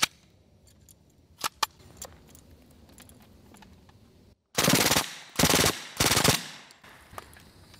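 Suppressed RPB MAC-10 submachine gun firing three short full-auto bursts in quick succession, each under half a second. It cycles hollow-point ammunition without a stoppage.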